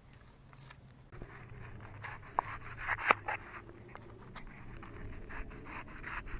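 Irregular scraping and rubbing, dotted with many short clicks, two of them sharper a little before the middle.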